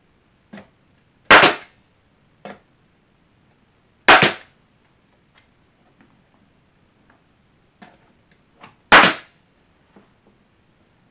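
Pneumatic nail gun firing three times, driving nails through an OSB board into the archway framing: three sharp shots, about three and five seconds apart, each with a short noisy tail, with faint knocks of the board and tool being handled in between.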